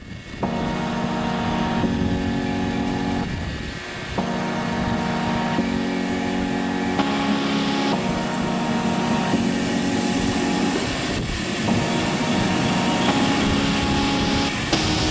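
Regional train of n-Wagen coaches running into the station platform and passing close by. Steady tones shift every second or two over a running hiss.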